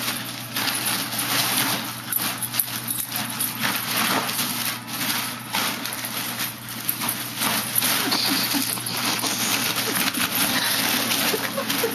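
Foil (mylar) birthday balloons crinkling and rustling in quick, irregular crackles as a puggle pushes into them and tugs at their ribbons, tangled up in the bunch.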